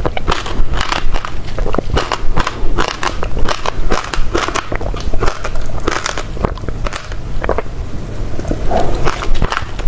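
Close-miked eating of passion fruit: a rapid, continuous run of crunching and crackling as the pulp and its small seeds are bitten and chewed, with wet mouth sounds.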